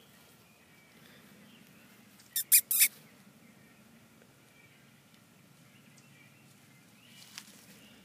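Three quick, sharp, high-pitched animal squeaks in a row about two and a half seconds in, with a fainter falling chirp near the end.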